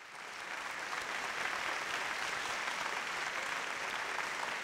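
Audience applauding steadily, fading in over the first moment.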